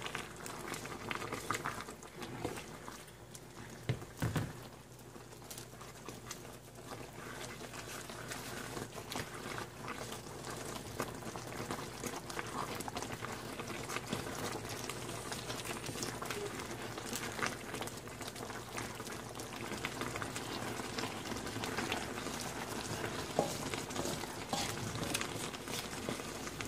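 Pot of misua and sardine soup boiling, a steady bubbling hiss that grows a little louder as it goes, with a few knocks of a wooden spatula against the pot in the first few seconds.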